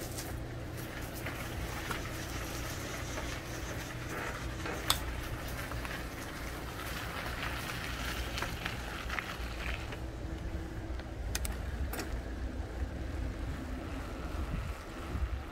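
Bicycles riding along a paved road, heard from a moving bike: a steady low rumble of tyre noise and wind on the microphone, with a sharp click about five seconds in.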